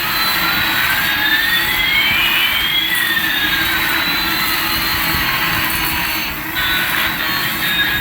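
Jet-engine sound effect, most likely the electronic sound of a toy Airbus A380 airliner: a steady jet rush with two whining tones, one gliding up and one gliding down, crossing about halfway. It dips briefly near the end.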